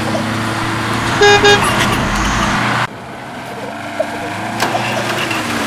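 A vehicle horn beeping twice in quick short toots over a steady engine hum. About three seconds in the sound cuts abruptly to a quieter hum.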